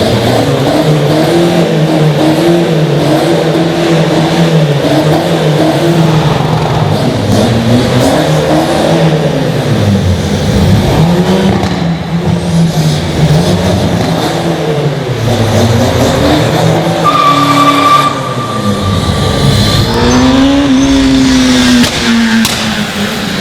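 Car engines revving and accelerating, the engine note rising and falling over and over, with a short high steady whine about seventeen seconds in and a falling note about twenty seconds in.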